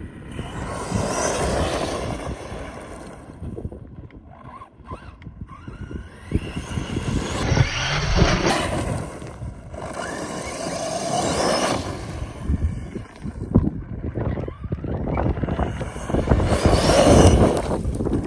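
DHK Maximus 1/8-scale RC truck running on its brushless motor over a loose dirt road, swelling and fading in several passes. Heavy wind buffets the microphone throughout.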